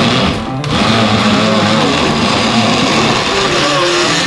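Background rock music with electric guitar, over a countertop blender running steadily as it mixes a thick milkshake.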